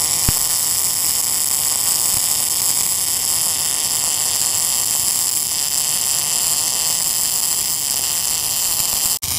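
Gas-shielded MIG welding arc from a Tenya NBC 288 welder laying a continuous bead on 6 mm steel plate, a steady hiss throughout. The sound drops out for an instant just before the end.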